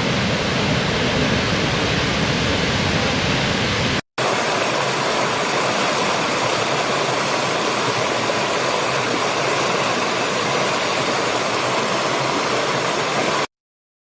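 Steady heavy rush of a large waterfall, with a deep low rumble, cut off about four seconds in. After a brief gap comes the lighter, steady rush of a small stream running over rocks, which stops abruptly near the end.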